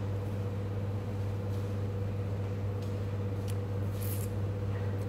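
A steady low hum with a fainter higher steady tone above it, broken by a few faint clicks and a brief rustle about four seconds in.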